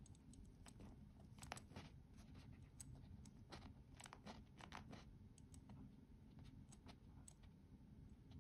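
Faint, irregular small clicks and ticks from the crown of a Hugo Boss Globetrotter quartz chronograph being turned between the fingers to set the hands, bunched about a second and a half in and again around four to five seconds in.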